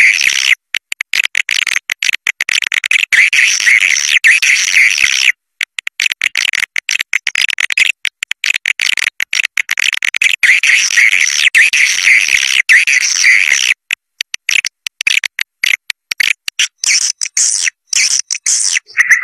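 Swiftlet lure call: dense, rapid chattering and twittering of massed swiftlets, the recording played to draw swiftlets into a nest house. The chatter drops out briefly about five seconds in and turns choppier near the end.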